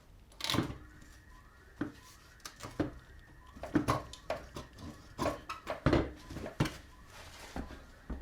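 Irregular metal clinks and knocks as the central rear wheel nut and its washers are taken off a Triumph Speed Triple 1050 and the rear wheel is pulled off its hub.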